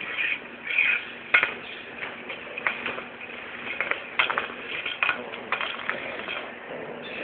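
Irregular clinks and scrapes of a small ring-shaped toy being pushed and dragged across stone paving by a Pomeranian puppy.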